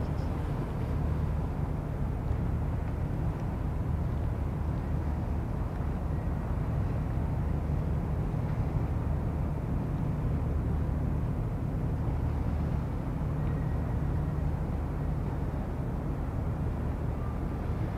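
Steady low rumble of harbour background noise, swelling and easing slowly, with no distinct events.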